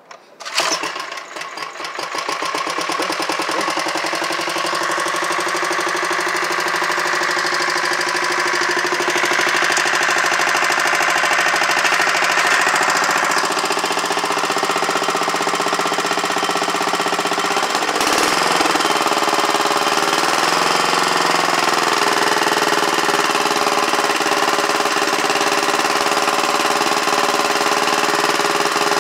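Warm single-cylinder Kohler engine on an old Wheel Horse garden tractor starting up about half a second in, then running with a steady, even beat. Its note changes about eighteen seconds in.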